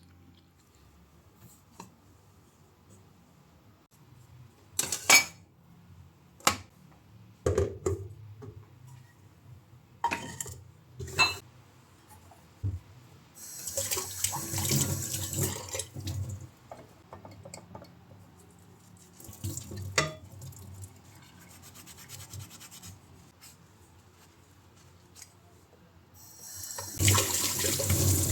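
Household handling sounds: a series of single knocks and clinks as objects or dishes are set down, then two short spells of a tap running water, the second one near the end.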